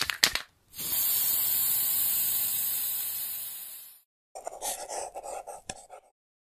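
Sound effects for a logo intro: a few quick clicks, then a long hiss that fades out over about three seconds. After a short gap comes a scratchy, crackling stretch of under two seconds with a sharp click near its end.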